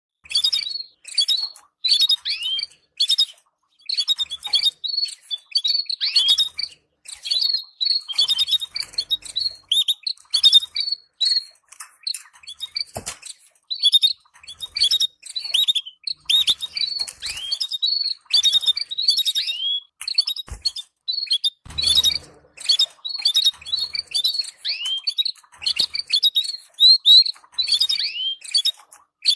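Canaries giving a continuous stream of short, high chirping call notes, several each second, many sliding downward in pitch. A few soft knocks are heard in the second half.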